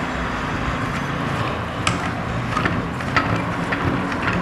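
A steady low background hum with hiss, over which a few light clicks of metal parts sound as a knob and locker washer are threaded by hand onto a screen-stretcher clamp bolt.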